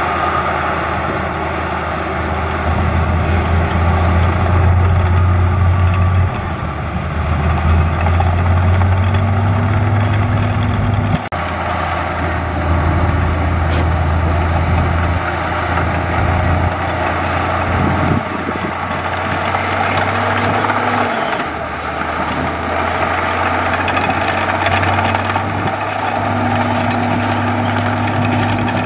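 Heavy diesel engines of crawler bulldozers and a loaded dump truck at work. The low engine note runs continuously, stepping up and down several times as the machines work.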